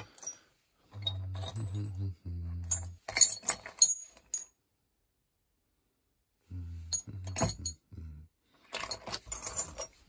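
Hardened-steel end mills clinking against one another as a hand rummages through a loose pile of them, in two clusters of sharp clinks: about three seconds in and again near the end. Between them come low, steady hums, a man's voice without words.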